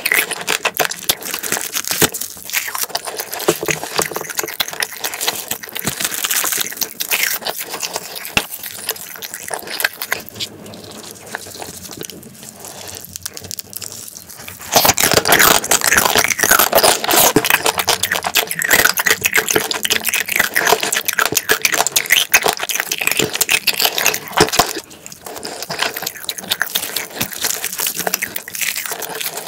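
Close-miked wet chewing, sucking and smacking while eating spicy marinated raw crab. The sounds are dense and continuous, softer for a stretch in the middle and loudest from about halfway on.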